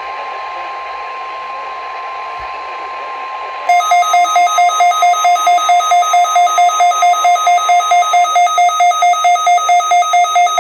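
Weather radio broadcast audio carrying a steady single warning tone of about 1 kHz over static, the 1050 Hz weather radio alert tone. About four seconds in, a weather radio receiver's own alarm sets off, a loud electronic beep pulsing about four times a second.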